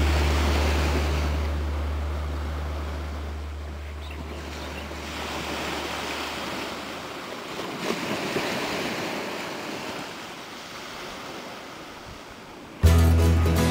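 Small waves washing up on a sandy beach, with some wind on the microphone. Over the first half, the last low note of a song fades out, and music comes back in suddenly, and louder, near the end.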